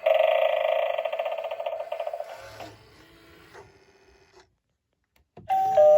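Gemmy animated Halloween doorbell sound effects: an electronic tone with a fast flutter fades out about two seconds in. A few clicks follow, then a short silence. Near the end a new doorbell chime starts, a higher note stepping down to a lower one.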